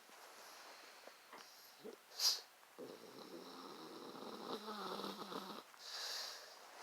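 A pug snoring in its sleep. A short, sharp snort comes about two seconds in, then one long snore of about three seconds, then a breathy exhale.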